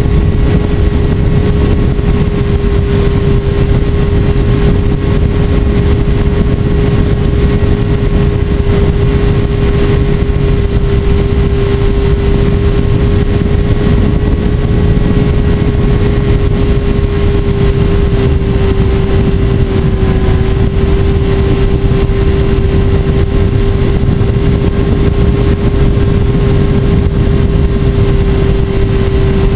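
FPV Raptor RC plane's electric motor and propeller running steadily in flight, a steady drone with a thin high whine above it, heard from the onboard camera under heavy wind rush on the microphone.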